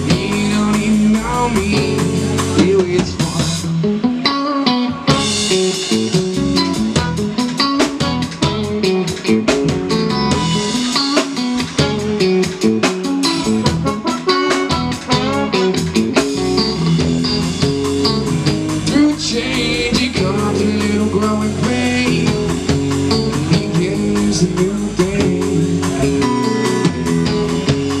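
Live band playing: electric guitar, bass guitar and drum kit keeping a steady beat, with a trombone joining in the middle.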